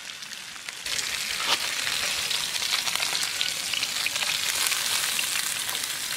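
Whole fish frying in hot oil in a pan: a steady sizzle with scattered crackles, jumping louder about a second in.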